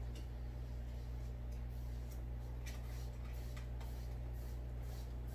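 Faint, scattered scratches and ticks of a paintbrush working paint onto a canvas, over a steady low electrical hum.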